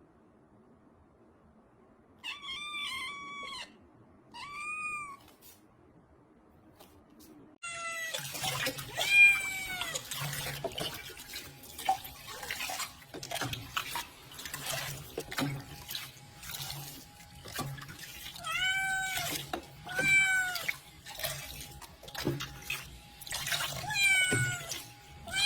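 A cat meowing: two drawn-out meows, then from about a third of the way in many more, repeated meows over the steady hiss of running water from a tap.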